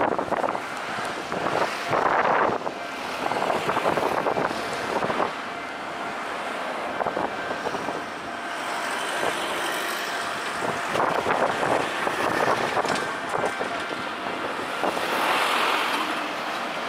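Road traffic on a city street: cars and a truck driving past, the sound swelling and fading as each vehicle goes by.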